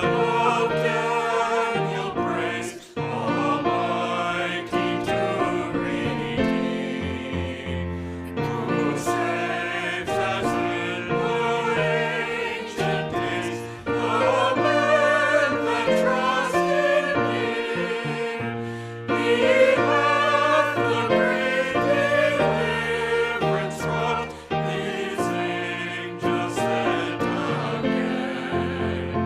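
A hymn sung by a group of voices, with instrumental accompaniment holding low sustained notes beneath the melody.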